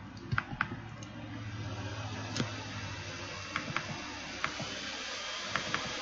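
Computer keyboard keys clicking, about eight scattered keystrokes over a steady background hiss.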